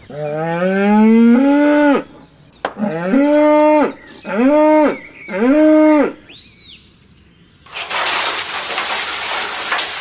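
Cows mooing: one long moo rising in pitch, then three shorter moos. A brief high chirp follows, and a steady hiss fills the last two seconds.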